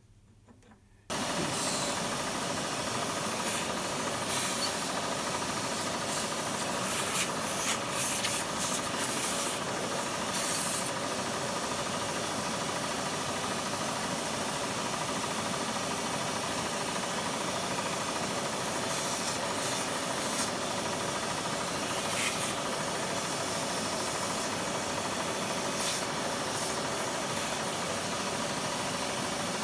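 Milling machine running with its cutter working a cast-iron lathe cross slide: a steady machine hum and cutting hiss that starts suddenly about a second in, with short louder bursts of hiss now and then.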